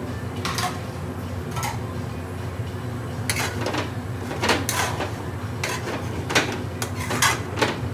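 Long-handled metal spoon scraping and knocking against an aluminium pan while chickpeas and tomato wedges in a thick sauce are stirred: a few short scrapes at first, then more frequent ones from about three seconds in, over a steady low hum.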